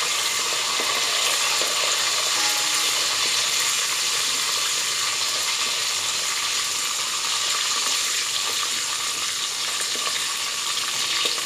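Curry leaves, cumin seeds and red and green chillies sizzling steadily in hot oil, stirred with a wooden spoon.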